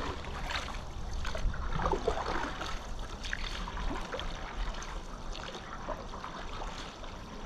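Water trickling and lapping with irregular small splashes as a canoe is paddled across a lake, the paddle dipping and pulling through the water.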